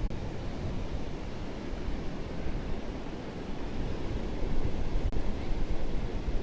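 Wind buffeting a microphone through its furry windscreen, a low gusty rumble that grows louder about two-thirds of the way through, over the steady wash of Atlantic Ocean surf.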